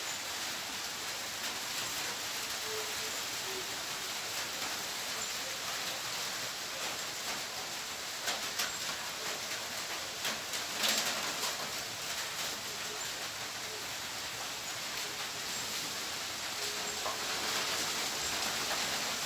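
Outdoor nature ambience: a steady, rain-like hiss with a few short, low bird calls, and a brief cluster of crackles and ticks about halfway through.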